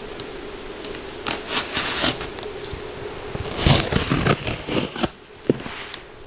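Scissors slitting the packing tape on a cardboard shipping box, with tape ripping and cardboard scraping: a string of irregular rasps starting about a second in, loudest around the middle and stopping about a second before the end.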